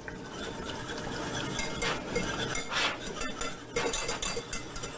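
Wire whisk stirring broth into a butter-and-flour roux in a small saucepan, its wires making repeated clicks and scrapes against the pan as the roux thickens into a paste.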